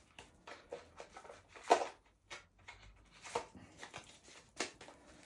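Scattered light taps and rustles of card decks and their boxes being handled, with a few sharper taps about a second and a half in, near three and a half seconds, and near the end.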